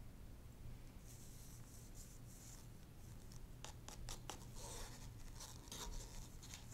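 Faint handling noises from gloved hands moving a canvas and a plastic cup over an aluminium foil drip tray: a soft rustle, then a run of small clicks and scrapes about halfway through.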